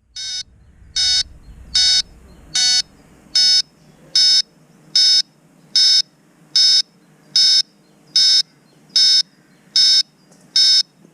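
FPV quadcopter's onboard buzzer beeping: short, high-pitched beeps repeating evenly a little faster than once a second. This is the pattern of a lost-model or warning beeper on a downed or disarmed drone.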